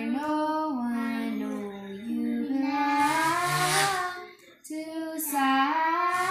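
A girl singing a song, held notes stepping up and down, with a short break for breath about four and a half seconds in.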